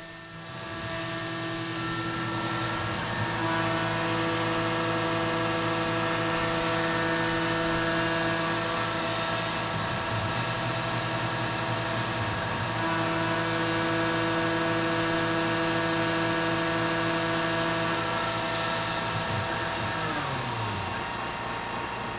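Tormach CNC mill face-milling aluminum with a 20 mm two-flute Datron facing end mill at 10,000 rpm: a steady spindle whine under cutting noise and the hiss of Fog Buster mist coolant. Near the end the pitch falls and the sound fades as the spindle winds down after the cut.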